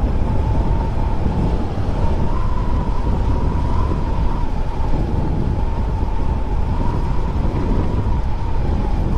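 Honda Click 125 scooter cruising at steady speed, its engine and drive giving a steady whine that rises slightly and settles back, over a heavy rumble of wind on the microphone.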